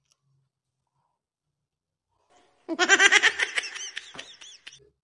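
A burst of laughter about two and a half seconds in, loud at first and trailing off over about two seconds.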